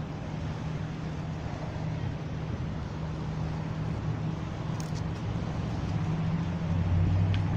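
A steady low engine hum over a constant background rumble, growing a little stronger near the end, with a few faint clicks.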